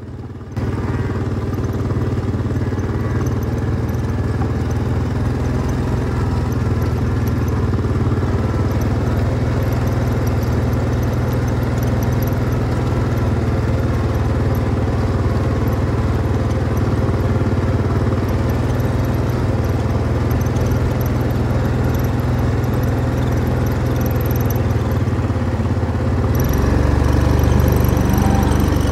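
A farm vehicle's engine running steadily at low speed, its low drone getting louder near the end.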